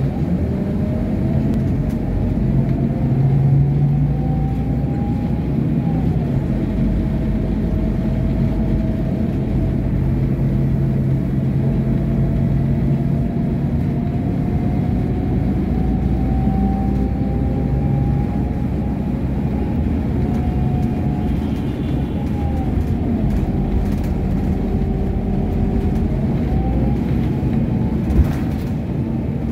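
Cabin sound of a moving Scania articulated bus: a steady engine and road rumble with a thin whine that rises slowly with speed and drops back several times. One short knock comes near the end.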